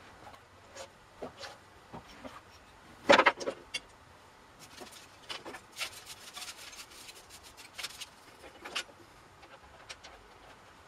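Scattered metal clicks and knocks of hands handling parts on a small mill/lathe's slotted cross-slide table and handwheel, with no motor running; one louder knock about three seconds in.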